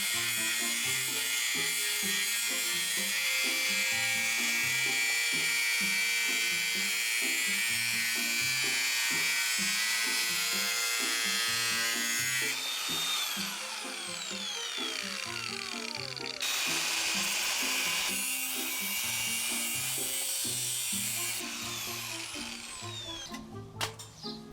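Angle grinder running on stainless steel: a loud, steady whine with hiss, switched off twice and winding down with a falling pitch each time. Background music plays underneath.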